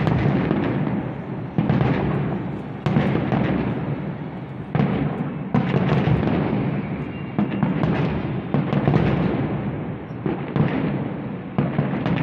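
Aerial firework shells bursting in a steady series of booms, roughly one a second, each sharp bang dying away before the next.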